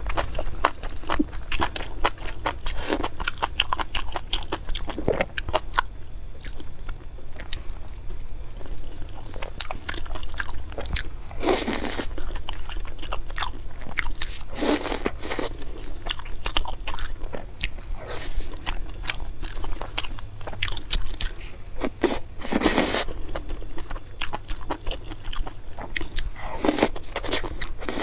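Close-miked eating: chewing and biting of skewered meat in spicy sauce, with many small wet mouth clicks. Four louder bursts stand out, about 12, 15, 23 and 27 seconds in.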